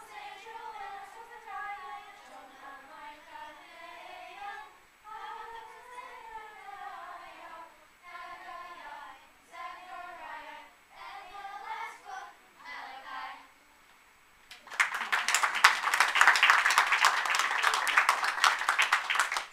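A children's choir sings a song to its end, and after a short pause the audience breaks into applause about fifteen seconds in, louder than the singing.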